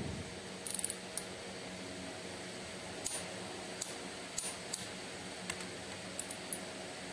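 About ten light, high-pitched clicks and ticks, scattered unevenly, from a torque wrench being handled on a timing-gear bolt of a diesel engine, over a faint steady hum.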